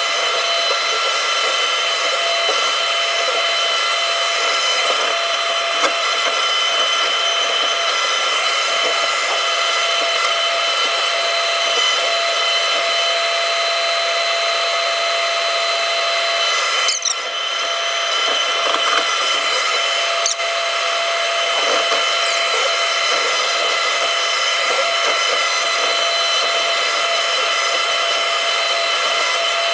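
Takeuchi TB290 compact excavator running steadily, its engine and hydraulics giving a constant whine, with a few small knocks and a brief change in the sound about two-thirds of the way through.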